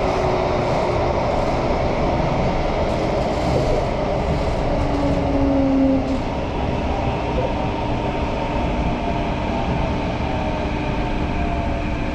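Thomson-East Coast Line MRT train running through the tunnel and into a station, heard from inside the carriage. It is a steady rumble of wheels on track, with the traction motors' whining tones running through it.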